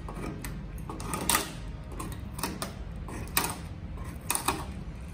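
Fingers picking and scraping at paint lifted by corrosion on the Cessna 172's aluminium skin along a riveted seam: a string of irregular sharp clicks and scratches over a low steady rumble.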